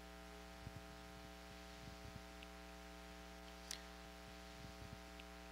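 Near silence: a steady electrical hum with a few faint, scattered clicks.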